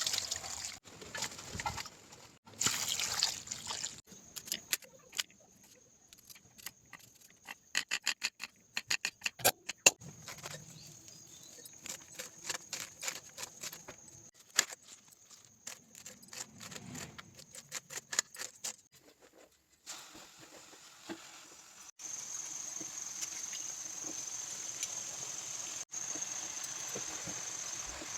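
Kitchen cooking sounds: quick runs of sharp clicks and clatter from utensils, then a steady high hiss from about two-thirds of the way through.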